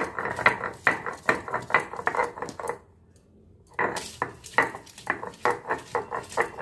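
Stone roller (batta) grinding garlic, ginger and green chilli into paste on a flat stone slab (sil), in quick repeated scraping strokes, about two to three a second. The strokes stop for about a second in the middle.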